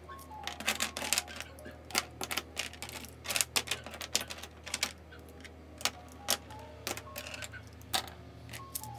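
Plastic pens and highlighters clicking and clattering against each other and the desktop as handfuls are gathered and laid down, in quick irregular clicks throughout.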